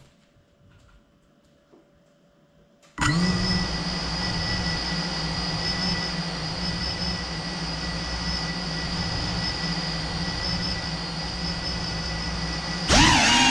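FPV quadcopter's brushless motors start up suddenly about three seconds in and run at idle with a steady whine, then throttle up louder and higher near the end as the drone lifts off.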